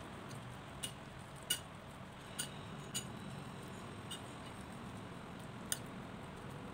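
Metal spoon clinking against a ceramic bowl about six times, sharp single clinks at uneven intervals, while it stirs and scoops a moist chili relish. A steady low background hum runs underneath.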